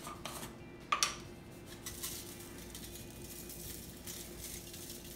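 A few light clicks, the sharpest about a second in, then the faint fine rattle of adobo seasoning being shaken from its shaker onto food on aluminum foil. A steady low hum runs underneath.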